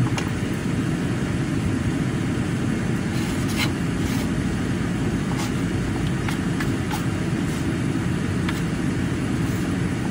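Steady low rumble of a car heard from inside its cabin. A few small clicks from eating are scattered through the middle of it.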